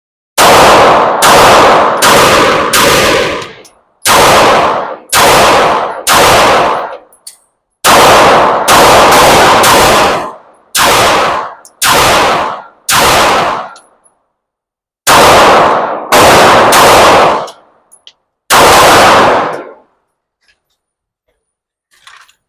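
Pistol fire at an indoor range: about eighteen shots in uneven strings of two to four, each shot ringing out in the room's echo. The firing stops about two and a half seconds before the end.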